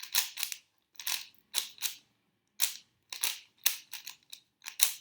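Rubik's Cube being turned fast during a timed speedsolve: quick runs of sharp plastic clicks and clacks from the turning layers, with brief pauses between the runs.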